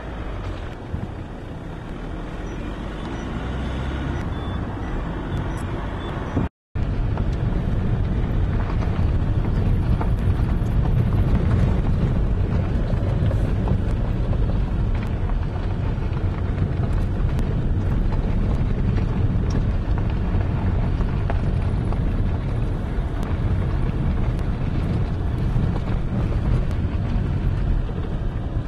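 Car driving along a rough, patched rural road, heard from inside the cabin: a steady rumble of tyres and engine. The sound drops out completely for a moment about six seconds in, then carries on a little louder.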